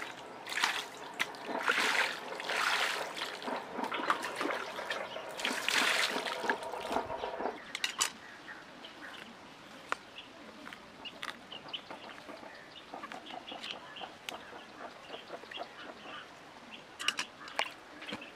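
Water poured from a plastic bucket, splashing over raw chickens on a stone slab for about the first seven seconds. After that come quieter wet handling sounds and small clicks as a chicken is cleaned out by hand.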